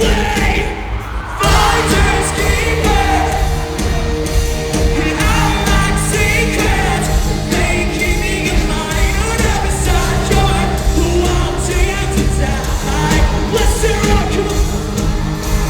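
A rock band playing live in an arena, with a sung lead vocal over guitars and drums. After a brief quieter moment, the full band comes back in loud about a second and a half in.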